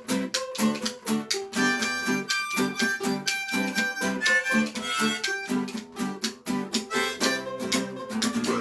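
Live band playing an instrumental passage: steady, fast strummed guitar at about four strokes a second, with a lead melody of held notes over it.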